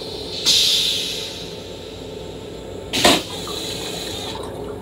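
Stainless steel train toilet flushing over the steady hum of the moving railcar. Rinse water hisses into the bowl about half a second in and fades over a second or so, then a short, loud rush comes about three seconds in.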